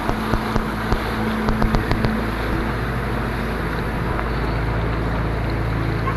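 Fast-flowing floodwater rushing, with wind buffeting the microphone as a steady, even noise with a low rumble. A few sharp knocks sound in the first two seconds.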